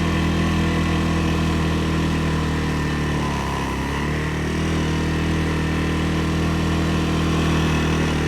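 CFMoto CF600 ATV engine running steadily while riding, its note dropping briefly about three seconds in and then picking back up.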